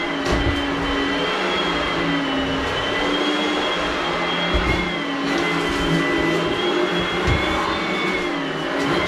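Upright stick vacuum running on carpet: a steady motor whine over a rush of air, its pitch wavering slightly as the head is pushed back and forth.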